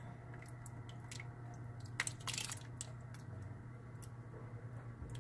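Canned petite diced tomatoes sliding out of the tin and plopping wetly into a pot of thick meat sauce, with a few faint clicks from the can and a louder squishy splat about two seconds in.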